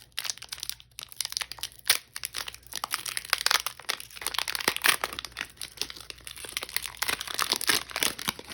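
Foil wrapper of a Pokémon booster pack crinkling and crackling as it is handled and torn open by hand: a dense, irregular run of crackles.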